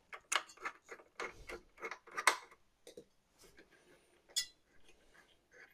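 Irregular small metal clicks and clinks from the Thermalright Assassin X 120R SE V2 tower CPU cooler's heatsink and mounting hardware being handled and loosened on the motherboard. The clicks come in a quick cluster about one to two seconds in, with a sharper click near the end.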